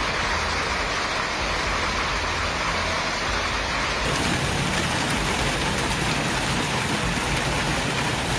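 Heavy hailstorm: hail and rain pelting down hard in a steady, dense rush.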